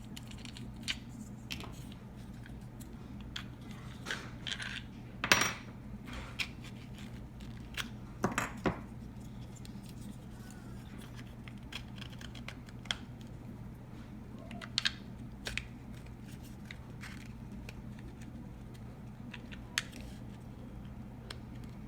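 Small plastic GoPro mount parts being handled and fitted together: scattered clicks and knocks, the loudest about five and eight seconds in, over a steady low hum.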